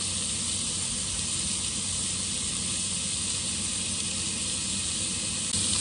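Sliced beef frying in hot oil in a non-stick pan: a steady sizzle, a little louder near the end.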